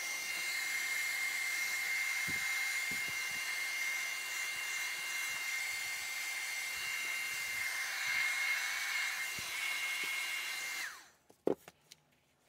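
Handheld hair dryer running, a steady rush of air with a steady whine. It is switched off nearly eleven seconds in, the whine sliding down as it stops, and a couple of short knocks follow.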